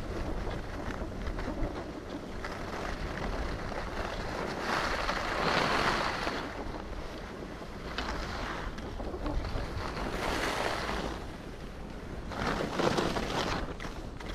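Skis scraping and hissing over packed, tracked snow, swelling several times, over a steady low rumble of wind buffeting the action camera's microphone.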